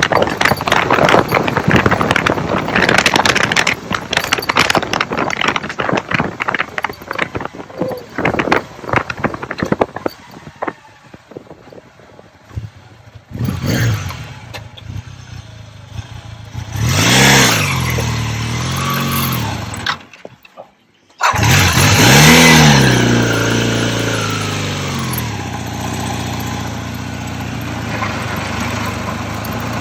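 Honda CB450T Hawk's parallel-twin engine running roughly, then dying away about ten seconds in. It is started again with a few short revs that rise and fall, then settles into a steady idle. The owner puts the stall down to being in second gear or a clutch that still sticks.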